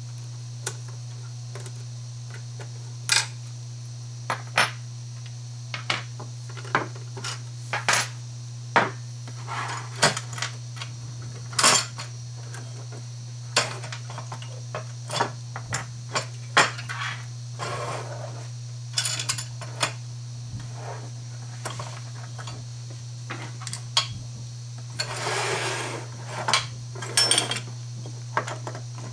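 Hard plastic and metal parts of a motorized curtain track clicking and knocking as it is taken apart by hand with a screwdriver, with small metal brackets set down on a wooden table. Scattered single clicks, with a longer sliding scrape near the end.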